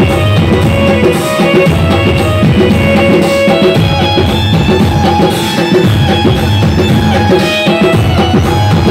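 Loud dance music with a heavy drum beat and bass drum, playing without a break.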